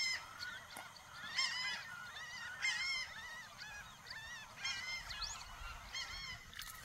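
Wild wetland birds calling: loud honking calls repeated every second or so, with fainter calls from other birds behind them.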